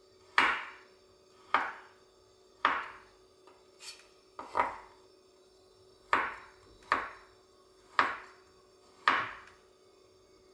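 Chef's knife slicing garlic cloves on a bamboo cutting board: slow single strokes, about one a second, each a sharp knock of the blade on the wood.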